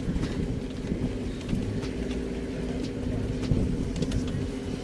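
Safari four-by-four engine running steadily as the vehicle drives along a muddy, rutted dirt track, with a low rumble and scattered short knocks and rattles.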